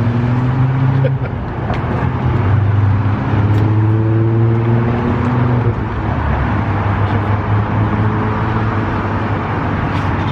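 A steady, loud, low motor hum that holds unbroken throughout.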